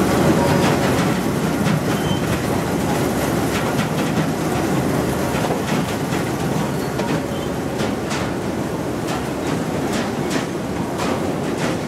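Paper-mill wood-handling conveyors running: a steady, loud, rolling rattle of rollers and belts, with scattered sharp knocks as pulpwood billets strike the steel rollers and chute.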